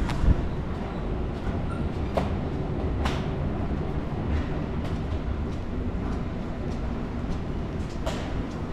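Steady low rumble of an underground metro passage. A thump comes just after the start as the padded flexible door is pushed through, then footsteps click on the stone floor about twice a second.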